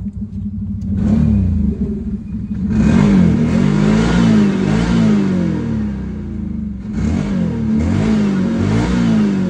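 Can-Am Commander side-by-side's engine through an MBRP aftermarket exhaust, revving up and down while the machine is ridden, the pitch rising and falling in repeated swells. It grows louder about a second in, eases off around six seconds, then revs up again near the end.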